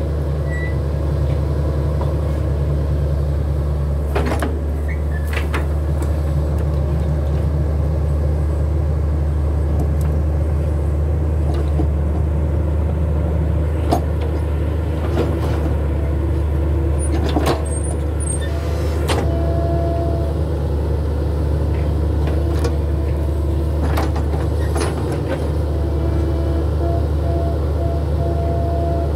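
Hitachi hydraulic excavator's diesel engine running steadily under load as it digs into and crawls along a steep dirt slope, with occasional sharp knocks. A thin high whine comes in briefly twice, near the middle and near the end.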